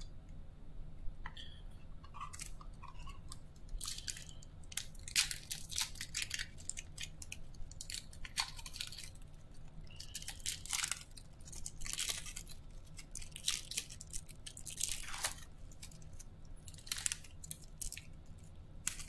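Plastic wrapper of a basketball trading-card pack crinkling and being torn open by hand: irregular crackles and rustles, with a few louder crackles through the middle.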